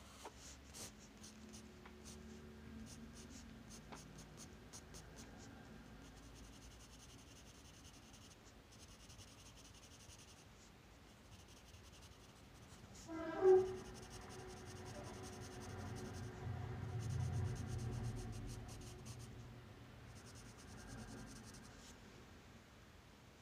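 Graphite pencil scratching on sketchbook paper in short, repeated shading strokes. About halfway through, a brief louder pitched sound is heard, followed by a steady low hum for several seconds.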